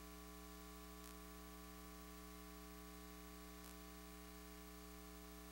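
Near silence with a steady, faint electrical hum.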